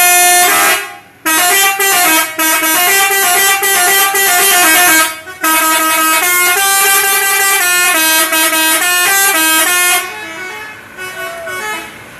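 Telolet horn, a set of electric trumpet horns driven by a melody module, blaring a tune in quick stepped notes with two short breaks. It stops about ten seconds in.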